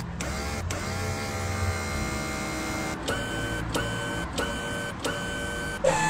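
A man's voice imitating robot machinery: a steady mechanical whirring drone, then from about halfway through a run of five short even buzzing pulses, about one every 0.7 seconds, like a printer head moving.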